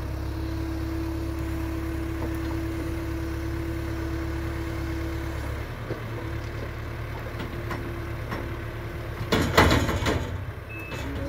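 JCB telehandler's diesel engine running with a steady whine as its boom lifts a bucket of manure. About nine and a half seconds in, a loud rough rush and clatter as the bucketful of manure is tipped into the spreader, and a reversing beeper starts near the end.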